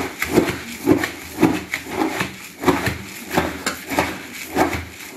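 Puffed rice being stirred with a metal knife blade in a large plastic tub, mixing in chutney: a rhythmic rustling scrape, about two strokes a second.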